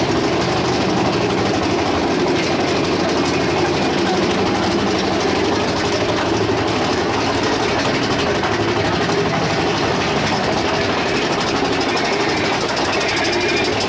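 Mine-train roller coaster cars running along the track, a steady loud rumbling clatter of wheels and track.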